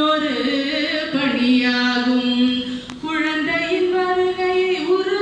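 A woman singing unaccompanied, a slow melody of long held notes that step up and down. A brief click about three seconds in.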